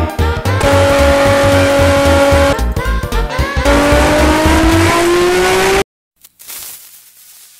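Edited meme audio: loud music with a pulsing bass beat and a held whining tone over it, then a tone rising steadily in pitch like a revving engine. It all cuts off abruptly near the end, leaving a faint fading hiss.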